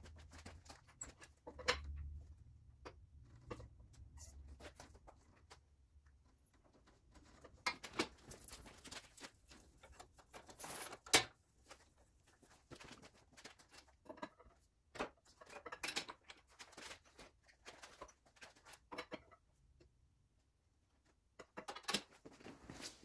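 Scattered light clicks and knocks of metal parts and tools being handled, with one sharper knock about eleven seconds in and a brief dead silence near the end.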